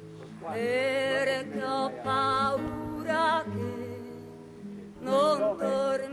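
Music: a singer holding long notes with a wavering vibrato in several phrases, over a steady instrumental accompaniment.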